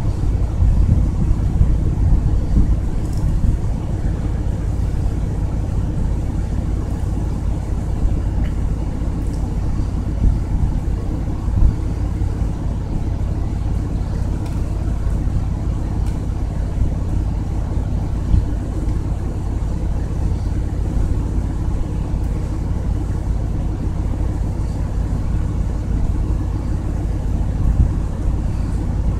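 Wind buffeting the camera's microphone as a thunderstorm approaches: a steady, fluttering low rumble with a few brief gust peaks.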